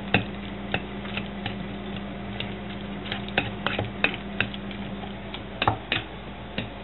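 A metal fork clicking and scraping against a stainless steel bowl at irregular intervals while grated tofu is mashed with the back of the fork. A steady hiss of water boiling in a pot on the stove runs underneath.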